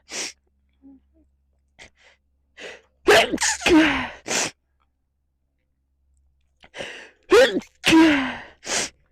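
A woman in a sneezing fit, in two bouts: the first about three seconds in and the second near the end. Each sneeze is a sharp gasp in followed by a voiced 'achoo' that falls in pitch, with faint breaths between the bouts.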